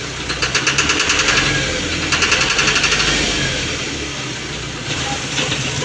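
Engine running with a rapid, even knock of about nine strikes a second, strongest in the first few seconds, fading, then returning near the end: the engine knocking that is the fault being shown.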